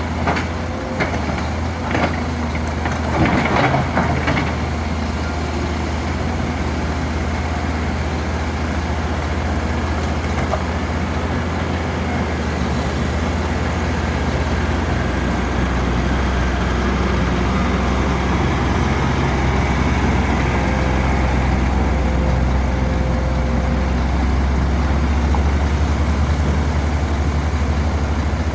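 Heavy machine engine running steadily with a deep, low drone. There are several sharp knocks in the first few seconds, loudest around three to four seconds in.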